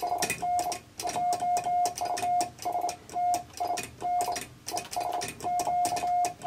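Hand-sent Morse code: a steady single-pitch tone keyed on and off in dots and dashes, with quick runs of dots, sent on a semi-automatic bug key. The metal key contacts click sharply with each keying.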